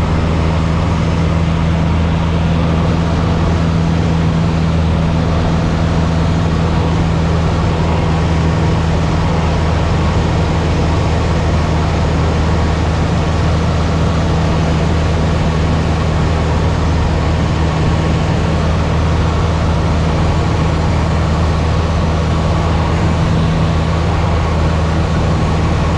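Steady drone of a light single-engine airplane's piston engine and propeller in cruise, heard inside the cabin: an unchanging low hum over a constant wash of noise.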